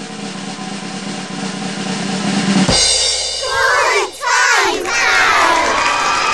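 Snare drum roll growing steadily louder, then breaking off about three seconds in into a burst of crowd cheering and excited shouts.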